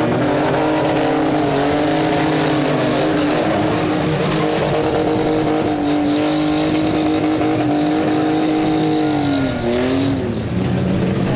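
A demolition derby car's engine revved hard and held at high revs, then dropping back about two seconds before the end.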